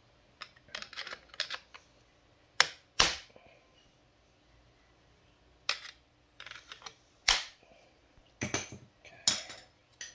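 Screwdriver prying at the clutch pack of a Honda GL1200 Gold Wing, metal on metal. It gives irregular sharp clicks and snaps, some singly and some in quick clusters, which is the makeshift tool slipping and catching on the clutch parts.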